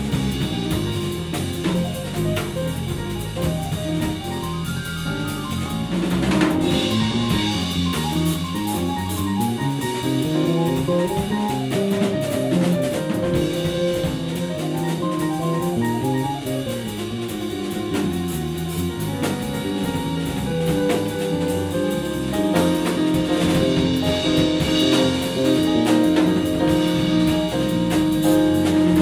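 Jazz band music, with a drum kit keeping time under bass and melody instruments.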